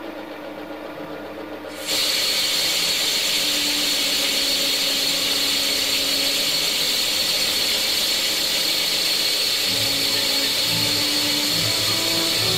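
Metal lathe taking a cut on round bar stock for a valve guide cover: a steady hiss of the tool cutting, with a high whine, that starts suddenly about two seconds in over a quieter running sound.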